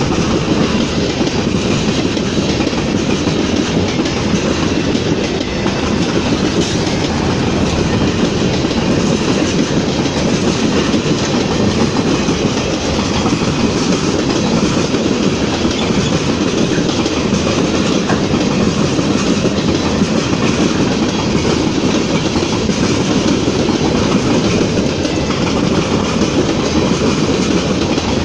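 Ferromex freight train's boxcars rolling past close by, steel wheels running over the rails with a steady, loud rumble.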